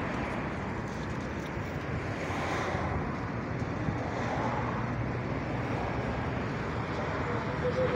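Busy city street ambience: a steady hum of road traffic with wind on the microphone and faint voices, and a short tone near the end.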